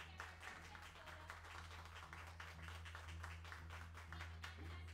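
Faint, light applause from a small audience, many scattered claps, over a steady low hum.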